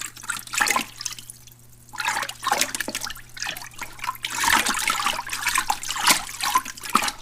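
Koi crowding at a pond's surface, splashing and slurping as they gulp at the water line, in irregular bursts with a short lull about a second in and busier splashing in the second half.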